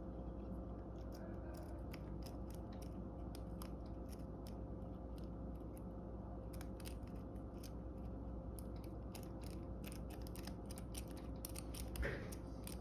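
Lock pick and tension wrench working the pins of a 4-pin ProSource weatherproof padlock: faint, irregular metallic clicks, over a steady faint hum.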